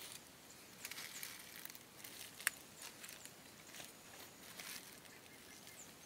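Footsteps crunching on dry leaf litter, a scatter of faint irregular crackles with one sharper snap about two and a half seconds in.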